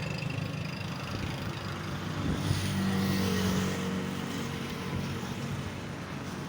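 A car engine running, picking up revs about two and a half seconds in, holding briefly, then easing off and slowly fading.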